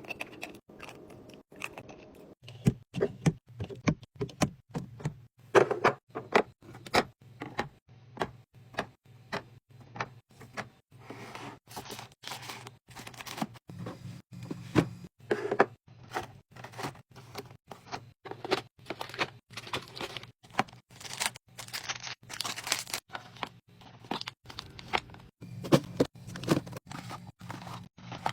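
Snacks and drinks being handled and set into a mini fridge: a dense run of short clicks, knocks and crinkles, a few each second, from packaging, bottles and containers, over a low steady hum.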